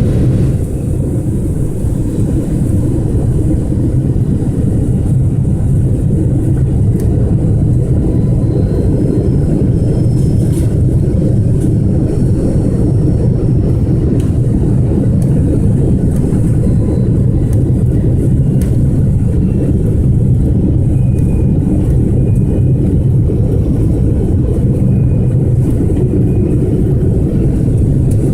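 Steady cabin noise inside an Airbus A330-300 airliner in flight: a deep, even rush of jet engines and airflow at a constant level, with faint high tones now and then.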